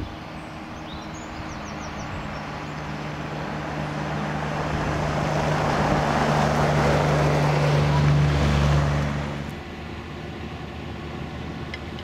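John Deere tractor's diesel engine running steadily as it drives past pulling a fertiliser spreader, growing louder to a peak and then dropping away sharply about nine and a half seconds in to a quieter steady engine hum. Faint bird chirps come through near the start and at the end.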